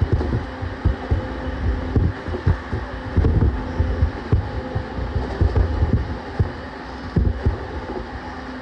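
Running noise inside JR East E231 series 1000 motor car MoHa E231-1076, still fitted with its original, not-yet-renewed traction equipment. The wheels and bogies give a steady low rumble with frequent, irregular low thumps and a faint steady hum.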